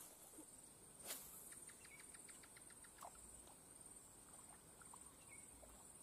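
Near silence: faint outdoor ambience with a steady high-pitched hum, a faint click about a second in followed by a quick run of faint ticks, and a few scattered faint chirps.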